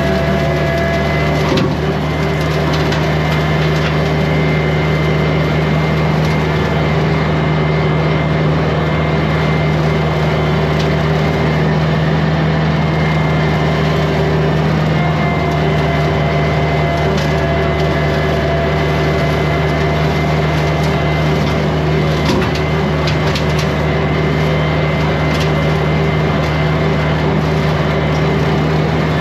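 Kubota B2150 compact tractor's diesel engine running steadily under load while it drives a rotary brush cutter mower. Scattered short cracks and snaps of brush and sticks being cut come through over the engine now and then.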